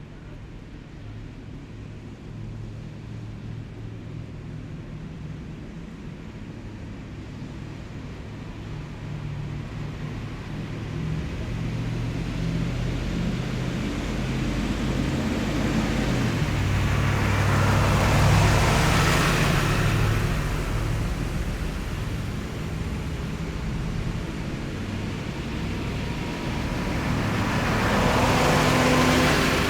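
Heavy military vehicles driving past in a column, engines giving a low steady drone. The sound builds, peaks as one vehicle passes about two-thirds of the way through, then another passes near the end.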